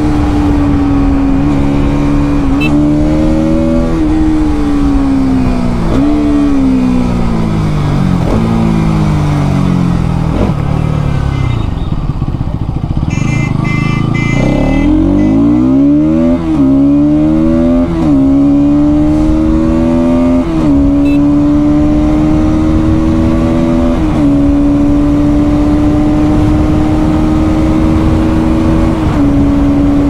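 Bajaj Pulsar NS200's single-cylinder engine heard from the bike while riding. In the first half it slows through a series of downshifts, the pitch falling and jumping back up each time. Near the middle it pulls hard back up through the gears with short dips at each shift, then holds a steady high-speed cruise.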